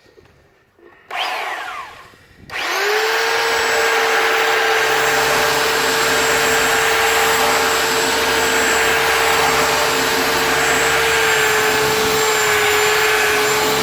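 Black+DECKER 7-amp 3x21-inch belt sander switched on briefly and released about a second in, its pitch falling as it slows. Then it is switched on again and runs up to a steady whine, with the belt running.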